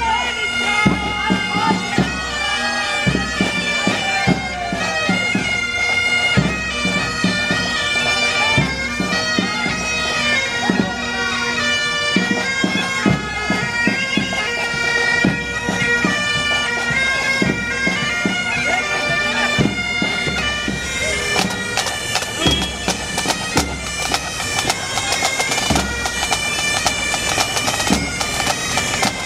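Pipe band playing: bagpipes carry a melody over a steady drone, with drum beats throughout.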